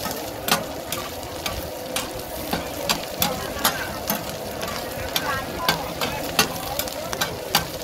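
Two metal spatulas clinking and scraping on a giant flat frying pan as egg is chopped and turned, about one to two sharp clinks a second over a steady sizzle of frying.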